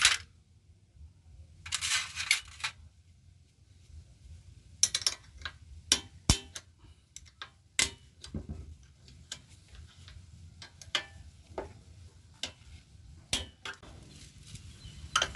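Metal clinks and taps of hand tools and loosened parts while the cylinder-head (rocker) cover of a Yanmar air-cooled diesel engine is being removed: a short rattling clatter about two seconds in, then scattered single clicks.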